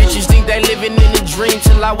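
Hip-hop track: a deep bass kick comes in right at the start and hits about three times, with pitched vocal or synth lines bending over it.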